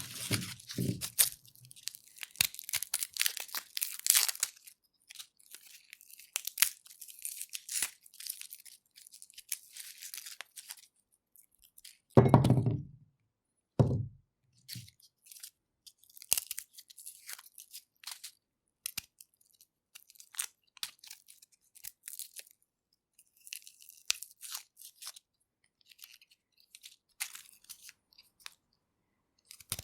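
Garlic cloves being peeled: dry papery skin crackling and tearing, dense at first and then in sparse bursts. Two dull knocks land about 12 and 14 seconds in.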